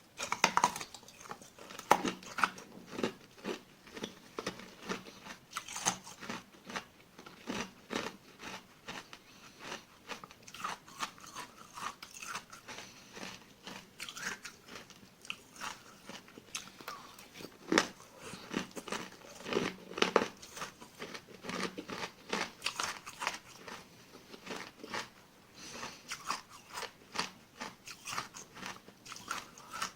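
Small frozen ice granules of tartary buckwheat crunched and chewed close to the microphone: a steady run of crisp, irregular cracks and crunches.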